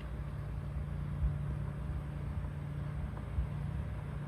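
A steady low hum with a faint rumble beneath it, from inside a car with the ignition switched on.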